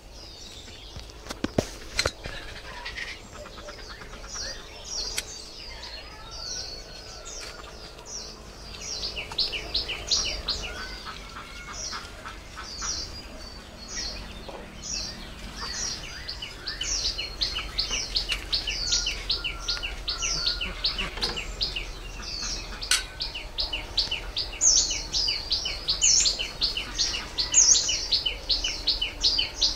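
Birds chirping in fast repeated series, growing denser and louder through the second half. A couple of sharp knocks come about a second and a half in.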